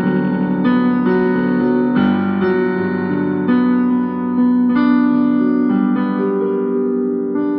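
Instrumental keyboard music: held chords on an electric-piano-like keyboard, changing every second or so at a steady level.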